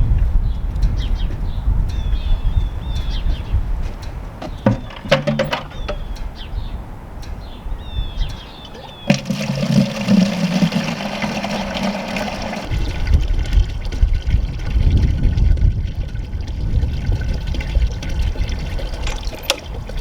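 Water pouring into a rubber pig-water tub, starting suddenly about nine seconds in and running steadily on, with wind rumble on the microphone. Birds chirp in the first few seconds.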